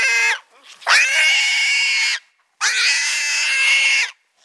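Feral pig squealing loudly in distress as it is caught and held: a short squeal, then two long drawn-out squeals of about a second and a half each with brief gaps between.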